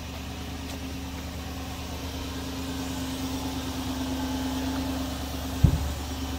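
Toyota Tundra's V8 engine idling steadily, slowly growing louder, with one brief low thump near the end.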